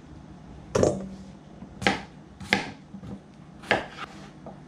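Kitchen knife chopping red-skin potatoes into bite-sized pieces on a cutting board: four sharp knocks of the blade striking the board, unevenly spaced about a second apart.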